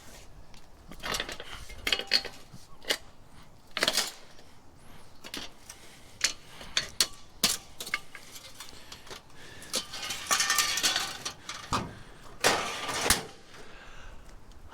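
Scrap metal parts being handled and pulled apart by hand: a run of light metallic clinks and knocks, with a longer rasping scrape about ten seconds in.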